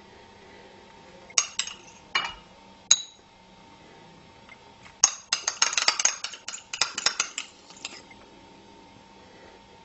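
A few light clinks of a spoon against tableware, the last one ringing briefly, then a couple of seconds of dense, crisp crackling as fresh parsley sprigs are pulled apart by hand.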